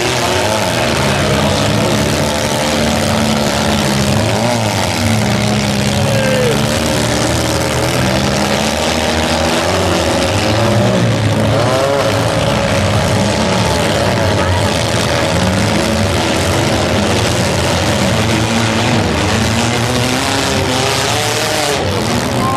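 Several demolition derby cars' engines running and revving together, their pitches rising and falling over one another.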